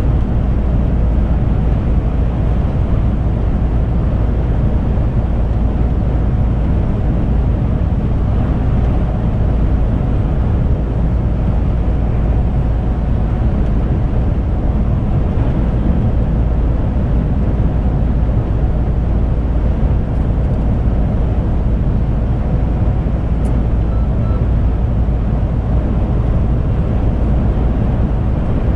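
Steady in-cab noise of a truck cruising at motorway speed: engine drone and tyre and road rumble, heaviest in the deep low end.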